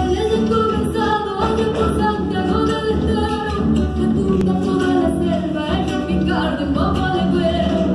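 Latin American folk song: singing over an instrumental accompaniment with a steady bass.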